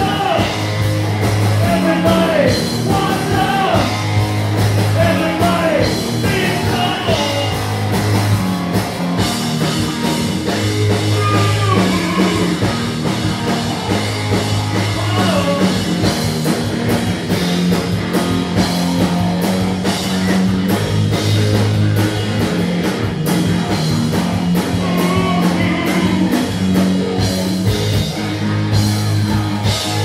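Live hard-rock band playing: electric guitars, bass and a drum kit with crashing cymbals, with a singer's lead vocals over them.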